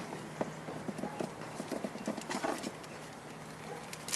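A quick, irregular run of light knocks and taps as small parts and packaging are handled, dying down after about two and a half seconds.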